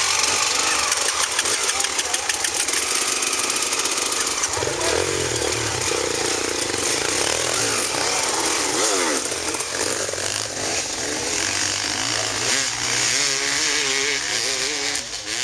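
Several dirt bike engines running and revving loudly. About nine seconds in, the engine pitch rises and falls in quick revs, and near the end it wavers up and down as a bike accelerates across the track.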